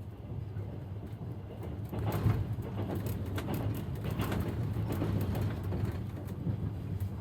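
Railway carriage wheels rolling on the track: a steady low rumble with the clatter of the wheels, which grows louder about two seconds in.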